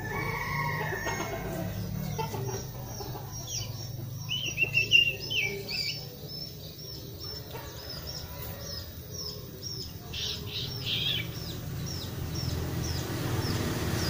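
Young sirtu bird, about a month and a half old, practising its 'ngeriwik' chatter: short high chirps repeated about twice a second, a louder trill about four to six seconds in, and a quick run of falling notes around ten seconds. A chicken calls in the first second or so.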